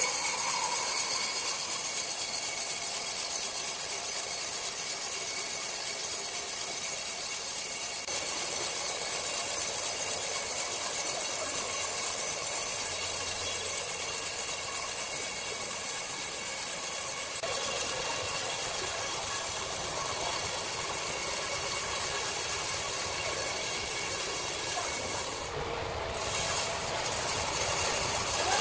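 Horizontal band sawmill running, its thin blade cutting through a large hardwood log: a steady hiss with a faint whine.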